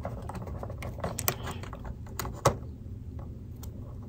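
Scattered small clicks and crinkles of clear plastic doll packaging being handled as a rubber band and strap are worked off a doll's hand. The clicks are thickest in the first two and a half seconds and then thin out.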